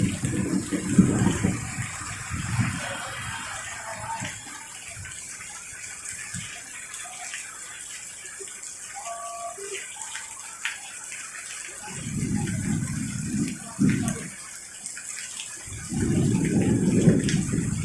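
Heavy rain pouring steadily, with low rolling rumbles of thunder near the start, again about twelve seconds in, and louder near the end.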